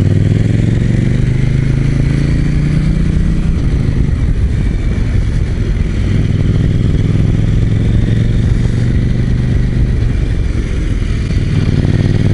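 KTM 790 Duke's parallel-twin engine running under way in third gear. Its note eases for a couple of seconds a few seconds in, then picks up again.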